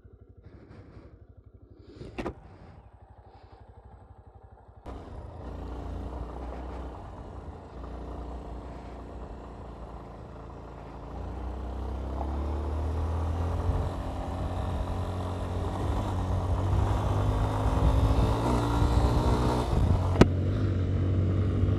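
Yamaha Ténéré 250's single-cylinder four-stroke engine ticking over with an even low pulse, then running under way along a dirt road, with wind and road noise, getting steadily louder from about halfway. A sharp click comes about two seconds in and another near the end.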